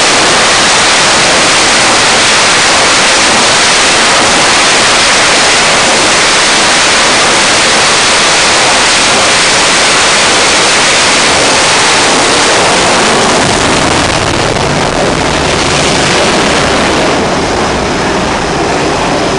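Twin jet engines of an F/A-18 fighter running at full power on a carrier's steam catapult, a loud steady roar. About fourteen seconds in the catapult fires and the jet launches, and the roar turns deeper.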